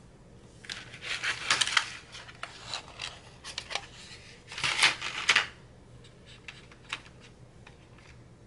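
Colored pencils clicking and clattering against one another as they are sorted through and picked up, in three short bursts of rattling followed by a few single clicks.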